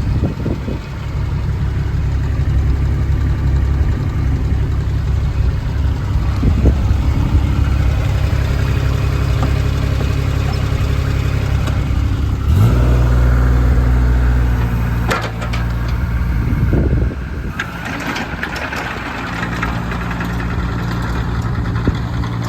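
JCB 8018 mini excavator's diesel engine running steadily. The engine note steps up about halfway through, and a few clanks follow near the end.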